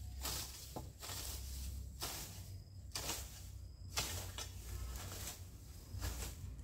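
Hoe blade chopping and scraping through weeds, grass and soil in repeated strokes, roughly one a second.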